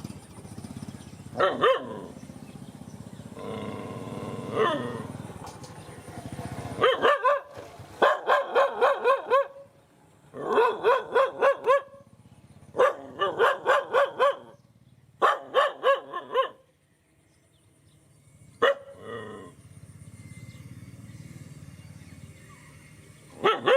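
A dog barking in quick runs of several short barks, about four a second, with pauses between the runs and a few single barks.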